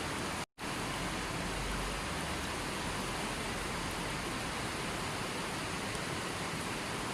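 A river flowing: a steady, even rush of water that cuts out for a split second about half a second in, then carries on unchanged.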